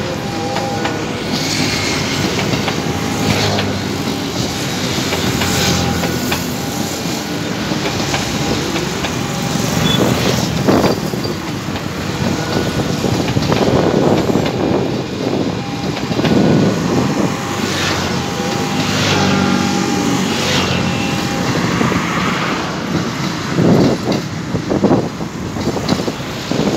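Long passenger train of stainless-steel coaches rolling past on the tracks below and drawing away, a steady rumble with wheel clatter and short recurring high tones. Several louder swells rise over it in the second half.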